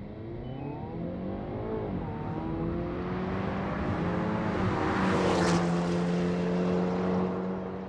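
Hyundai Kona N's 2.0-litre turbocharged four-cylinder accelerating, its pitch rising and then holding steady. A rush of tyre and wind noise swells as the car passes about five seconds in, and the sound fades near the end.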